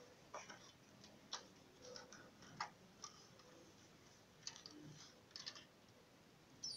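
Faint scattered clicks and light knocks of a mains cord and a metal ATX computer power supply being handled, about eight in all. Right at the end the power supply comes on, with a sudden steady high whine and hum.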